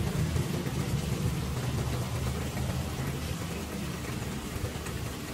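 Steady hiss of falling or splashing water, like rain or an aquarium's water return, with a low hum underneath.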